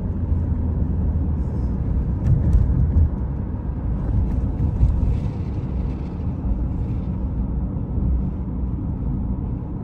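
Steady low rumble of a car driving along, the road and engine noise of the moving vehicle, with short louder swells a couple of times about two to five seconds in.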